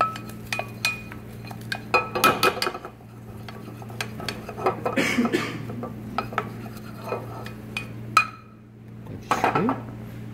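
A wooden spoon stirring and scraping a thick flour-and-fat white roux in a pot, with many short knocks against the pot, over a steady low hum.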